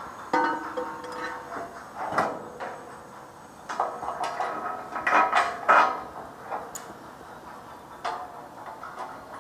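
Clanks and scrapes of a steel bar against a structural steel beam during a connection, the louder knocks ringing briefly. Single knocks come about half a second and two seconds in, and a quick run of them falls in the middle.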